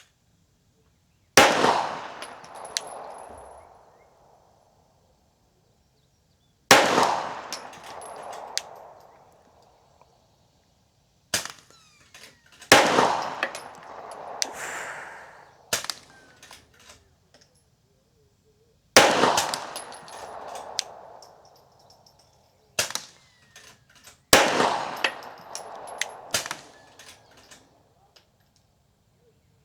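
Glock 34 9mm pistol fired slow fire with 147-grain ammunition, one shot every few seconds. Each shot has a sharp crack followed by a couple of seconds of echo, with a few fainter shots falling between them.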